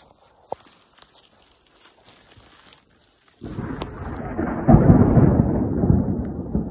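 A few faint footsteps and twig snaps on leaf litter. About halfway through, a sudden loud, low rumbling noise comes in on the camera microphone as the person moves quickly through the bush, with rustling of scrub.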